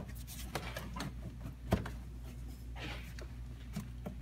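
Plastic air intake duct being handled and fitted back onto the engine: a few sharp clicks and knocks, the loudest about halfway through, over a low steady hum.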